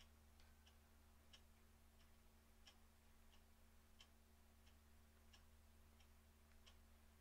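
Near silence: faint, evenly spaced ticks, about three every two seconds, alternating louder and softer, over a low steady hum.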